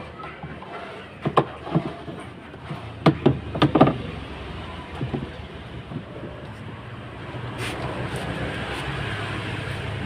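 Clicks and knocks of hands handling a capacitor and its wiring inside a twin-tub washing machine's cabinet, clustered in the first four seconds. A steady background noise grows louder in the second half.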